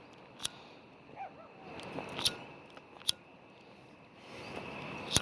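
A few separate sharp clicks and taps spread over several seconds, with a faint steady high tone behind them.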